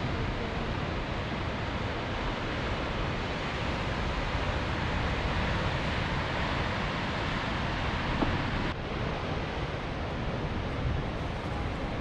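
Steady rush of ocean surf mixed with wind buffeting the microphone. The hiss drops abruptly about nine seconds in.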